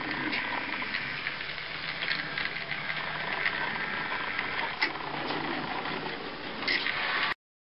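Model trolleybus running along a layout: a small electric motor's steady whirr with scattered clicks, cutting off suddenly near the end.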